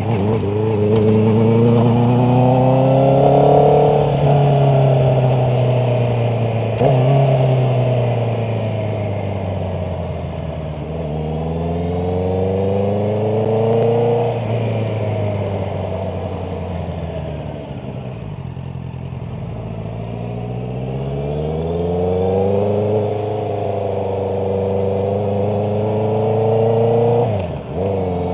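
Honda CBR650R's inline-four engine pulling through the gears: its pitch climbs under throttle, then drops at each shift, six or so times over the stretch. It eases off to a lower steady note about midway before building again.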